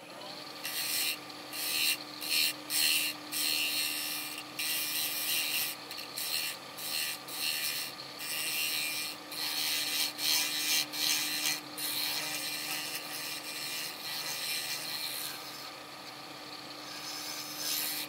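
A Powermatic wood lathe runs with a steady motor hum while a turning tool cuts a spinning black walnut bowl. The cuts come as irregular hissing passes, some short and some several seconds long. The cutting stops a few seconds before the end, leaving only the hum.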